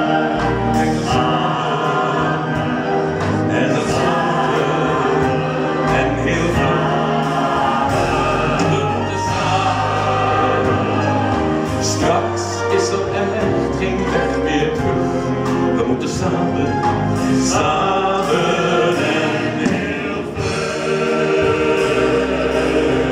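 A group of voices singing a chorus together over live musical accompaniment, with steady bass notes underneath.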